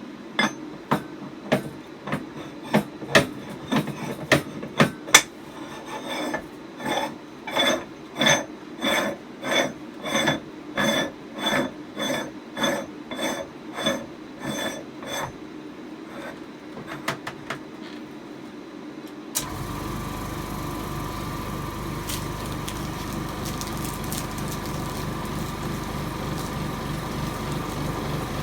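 A run of sharp clicks and knocks, then an even knocking at about two a second. About two-thirds of the way through, the air compressor of an OCA laminating autoclave (bubble remover) starts and runs steadily with a hum, pressurising the chamber.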